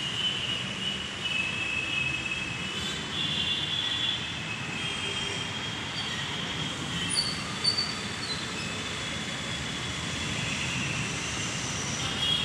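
Train wheels squealing against the rails: high, wavering screeches that come and go over the steady low rumble of the moving train, with two brief sharp clicks a little past halfway.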